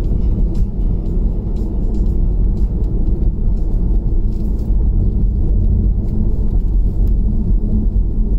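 Steady low road rumble inside a Tesla Model 3's cabin: tyre and road noise from driving on rough, cracked asphalt. The car is electric, so there is no engine note under the rumble.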